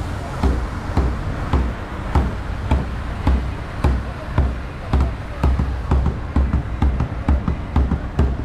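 Drum beating a steady rhythm, about two strokes a second, with deep low thumps under sharper strikes.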